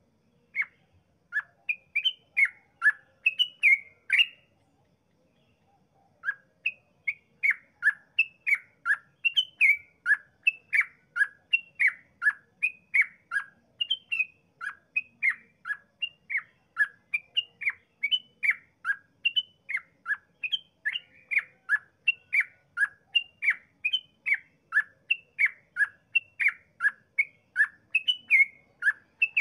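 Yellow-vented bulbul (trucukan) singing its rapid 'ropel' song, a fast run of short, quickly falling whistled notes. It breaks off for a moment about four seconds in, then runs on unbroken at two to three notes a second.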